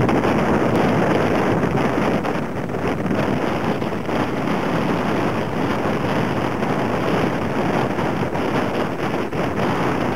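Steady noise of large storm waves breaking and washing over the shore, mixed with strong wind buffeting the microphone.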